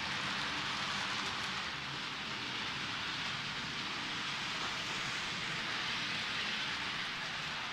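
H0-scale model trains running around a layout: a steady rushing noise of small metal wheels rolling on the rails and the locomotive motors.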